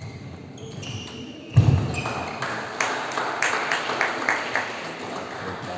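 Shoes squeaking on a wooden badminton court during a rally, then a thud about a second and a half in. Spectators then cheer and clap for a few seconds before it dies down.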